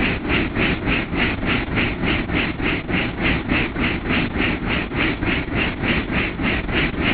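Helicopter in flight: a steady engine and rotor drone with an even pulsing, about four beats a second.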